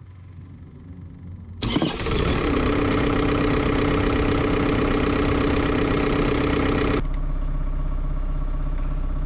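Cat 305.5E2 CR mini excavator's diesel engine starting up. A loud, steady start begins suddenly about two seconds in. About seven seconds in, the high-pitched part cuts off and the engine settles into an even idle.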